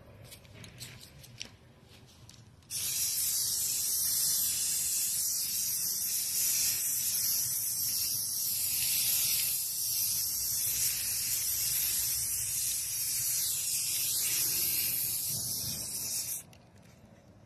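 Aerosol can of red spray paint hissing in one long, continuous spray, starting sharply about three seconds in and cutting off near the end.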